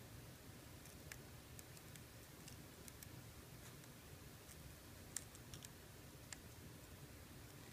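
Faint, scattered sharp clicks over a low hum as a scalpel and forceps work a boxwood leaf.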